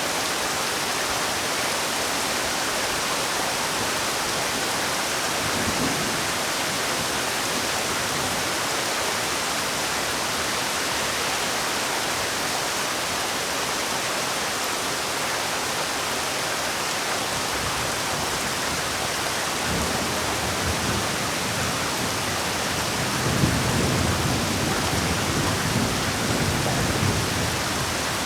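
Heavy rain falling in a steady, dense hiss. Low rumbles swell up briefly a few times, most strongly near the end.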